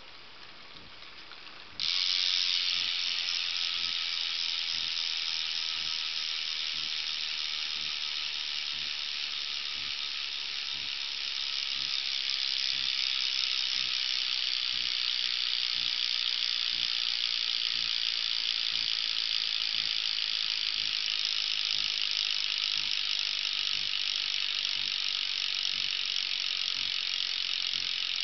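PMP bicycle hub freewheel: the pawls ratcheting in the freehub as the wheel spins freely. Quiet ticking at first, then about two seconds in the clicking suddenly becomes a loud, dense, high buzz that runs on steadily.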